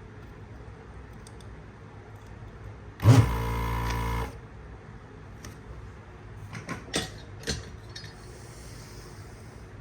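Desoldering station's vacuum pump switching on with a click and running for about a second as a steady motor hum, sucking solder off the board. A few sharp light clicks follow later.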